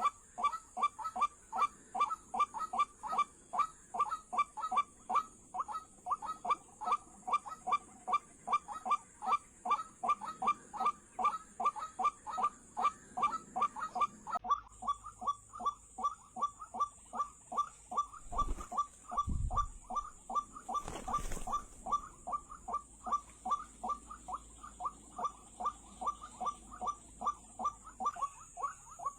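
White-breasted waterhen (ruak-ruak) calling: harsh 'wak' notes repeated evenly, about three a second, without a break. Under the calls runs a steady high-pitched whine, and two dull thumps come about two thirds of the way through.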